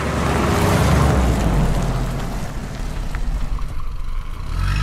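A vehicle engine sound running steadily with a low hum, under a rushing noise that is loudest in the first two seconds and then thins out.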